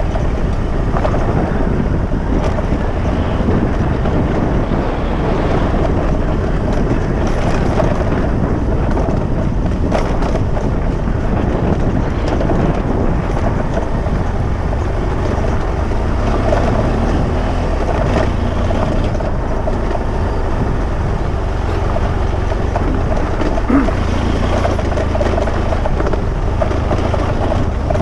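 A vehicle driving over a rough dirt track: a steady engine and tyre rumble under heavy wind buffeting on the microphone, with a few brief knocks from the rough ground.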